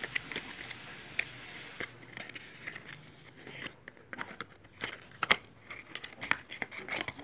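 Handling noise from a small cardboard box turned over in the hands: irregular clicks, taps and crinkles, growing busier after about two seconds, with the sharpest click a little past five seconds.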